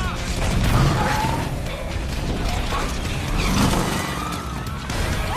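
Film sound effects of mechanical clanking and ratcheting over a steady low rumble, with short squeals about a second in and again near the end.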